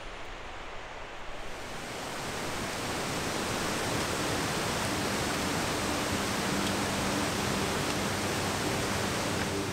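Mountain stream rushing over boulders in white-water cascades, a steady rush that swells up about a second and a half in.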